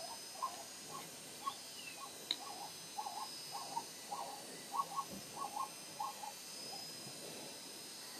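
A run of short, pitched animal calls, several a second, coming thickest a little before the middle and stopping about three quarters of the way through. They sit over a faint steady high-pitched hiss, with one brief falling chirp and a click.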